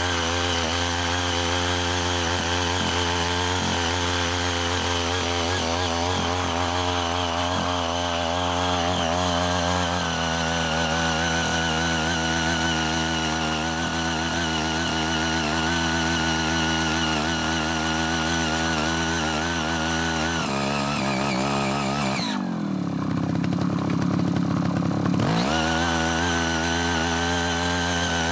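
Engine of a CY80 mini power tiller running steadily at working speed while its rotary tines churn through weeds and soil. The engine note shifts for a few seconds about two-thirds of the way through, then settles back.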